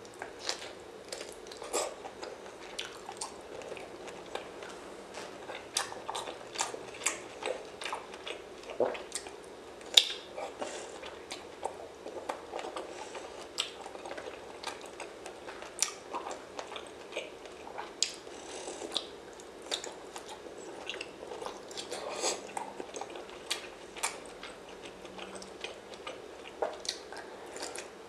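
Close-miked eating: chewing and biting food with many irregular crunches and wet mouth clicks, the loudest crunch about ten seconds in.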